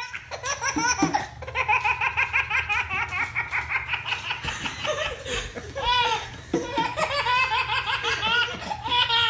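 Baby belly-laughing in long runs of rapid, high-pitched ha-ha pulses.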